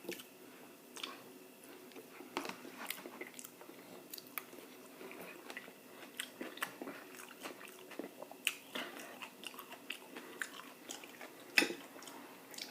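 A person chewing and biting food close to the microphone, with many irregular short wet mouth clicks and smacks.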